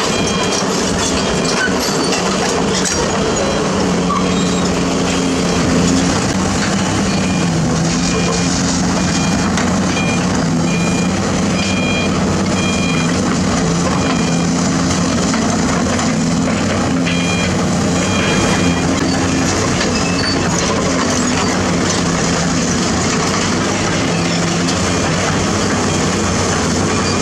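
Zoomlion ZE490EK-10 ripper excavator's diesel engine working under load as its ripper tooth tears through limestone, with rock grinding and scraping. A beeping alarm sounds in repeated short beeps through much of the first half and again briefly later.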